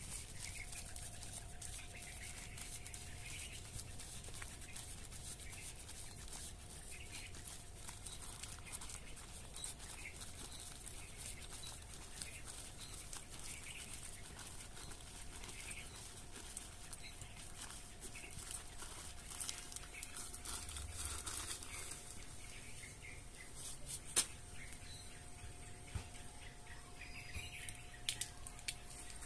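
Crinkling and crackling of a black plastic grow bag and potting soil being handled by hand as a chili pepper seedling is set in, with small bird chirps in the background. One sharper click stands out near the end.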